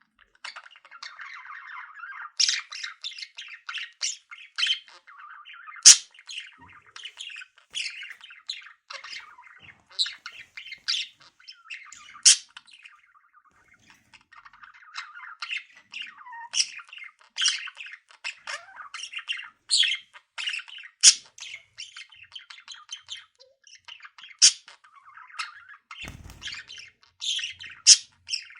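Budgie chattering in a fast run of squeaks and chirps, broken every second or two by sharp, louder squawks, with a short pause about halfway through. A few low thuds come near the end.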